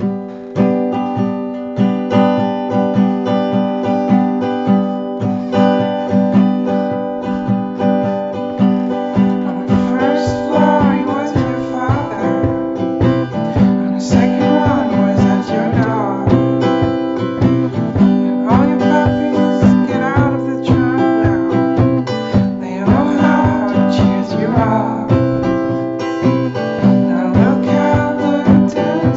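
Acoustic guitar music with a fast, steady plucked rhythm, and a gliding melody line over it from about ten seconds in.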